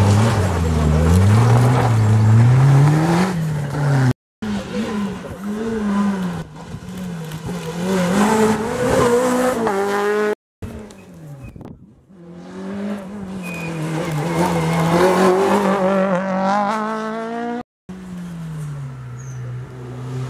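Rally car engines revving hard through a junction, pitch climbing and then dropping again and again as the cars brake, shift gears and accelerate away. The sound breaks off abruptly three times, each time cutting to another car.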